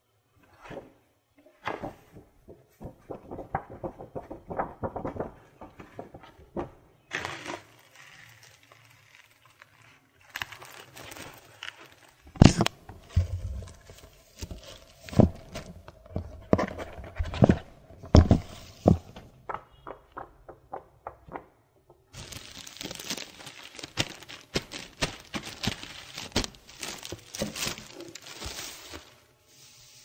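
Close-up unboxing handling sounds: a paper letter rustling and being put aside, several sharp knocks as the boxed plaque is handled, then plastic wrap crackling as it is peeled off the metal Silver Play Button plaque.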